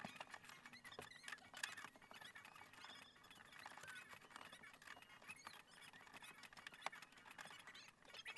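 Faint scattered clicks and small squeaks from hand work on a car's interior.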